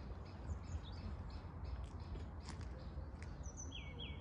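Wild birds chirping: short high calls in a quick series, then two falling calls near the end, over a low outdoor rumble with a few faint clicks.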